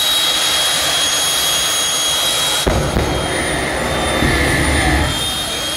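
Pratt & Whitney turbine engines of two jet drag cars whining steadily at the start line. About two and a half seconds in, the afterburners light with a sudden deep rumble that covers the whine for about two and a half seconds; then the whine returns.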